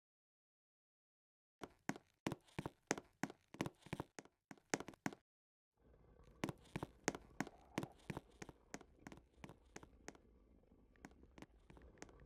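Faint, irregular taps, a few a second, starting after a moment of dead silence; a low hum comes in about halfway through.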